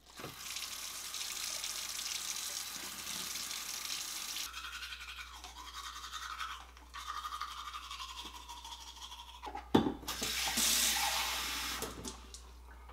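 Tap water running into a washbasin, then teeth being brushed with a manual toothbrush, a scratchy scrubbing. A sharp click about ten seconds in, then water runs again, filling a cup for rinsing.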